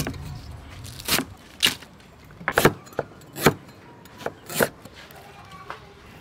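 A steel cleaver chopping lemongrass and ginger on a wooden cutting board: sharp knocks of the blade striking the board, about nine of them at uneven intervals, some in quick pairs.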